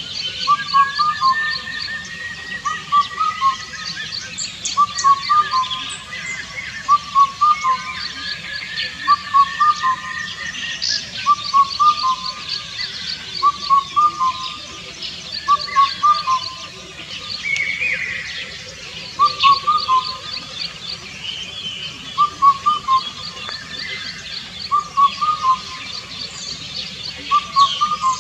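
Indian cuckoo singing its four-note song, the phrase repeated about every two seconds. Other birds call in the background, one with a slow gliding whistle.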